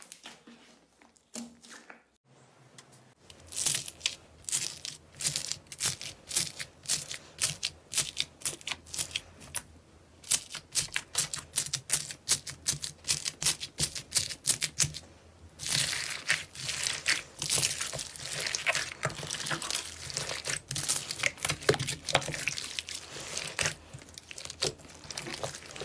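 Crunchy foam-bead slime being poked and kneaded by hand, crackling and popping. It starts a few seconds in as scattered sharp crackles and becomes a dense, nearly continuous crackle about halfway through.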